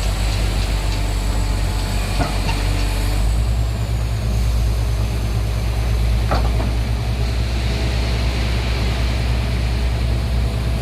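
Heavy diesel engine of heavy equipment running steadily, its low rumble getting heavier about three seconds in.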